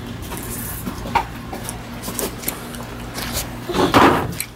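Hollow knocks and rubbing of a plastic toddler roller coaster's car and track as it is handled, with a louder scraping burst about four seconds in, over a steady low hum.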